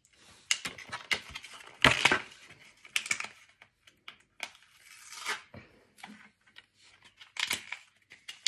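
Small plastic packaging of press-on nails crinkling and tearing in the hands in short irregular bursts, with small clicks in between, the loudest about two seconds in.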